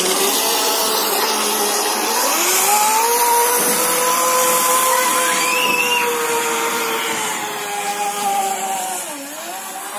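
Electric RC speedboat with a 3650-size, 3000 KV brushless motor on a 2S LiPo running at speed: a steady high whine that climbs in pitch about two seconds in, holds, then slowly sinks. Near the end the whine dips sharply and climbs back. A loud steady hiss runs underneath.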